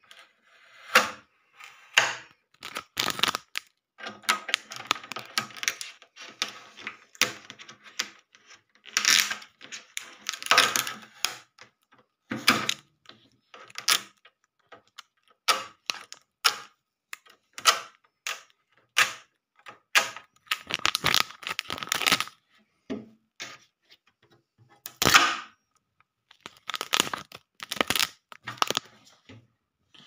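Blue shipping tape being peeled off a new refrigerator's plastic door bins, with irregular sharp clicks, short rips and knocks from the plastic being handled.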